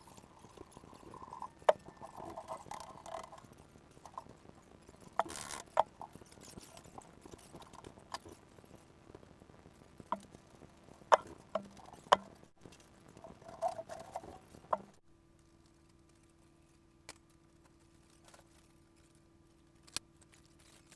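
Irregular knocks, clanks and clatter of heavy workshop equipment being moved and handled. About 15 s in the sound changes to a steady low hum with a few faint clicks.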